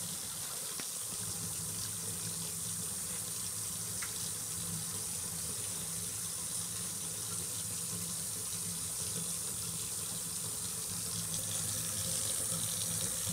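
Kitchen faucet running a thin, steady stream of water into a stainless steel sink.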